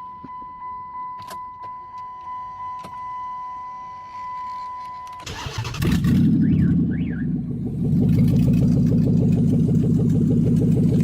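A car's electronic warning chime sounds as a steady run of pulsing beeps. About five seconds in, the engine cranks, starts, and runs loudly, settling into a steady idle.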